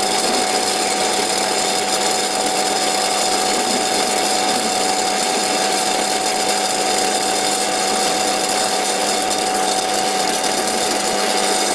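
Pre-war Karger metal lathe running at 425 RPM, belt-driven by a one-horsepower motor, while a tool bit takes a cut on a steel point: a steady machine noise with a steady whine over it, the cut chattering a little.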